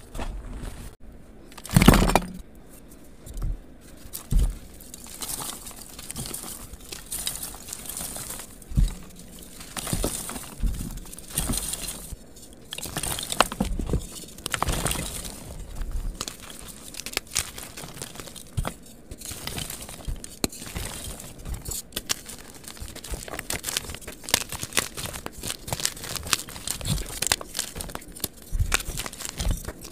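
Dyed gym chalk blocks and powder crushed and crumbled by hand, sped up: continuous dry crunching and crackling, with a louder thump about two seconds in.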